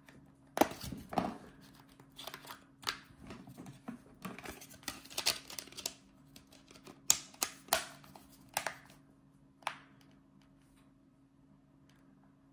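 Plastic clicks and scrapes of a Nokia 8210 4G's battery being refitted and its back cover pressed and snapped into place by hand: a string of sharp clicks over about nine seconds, then they stop.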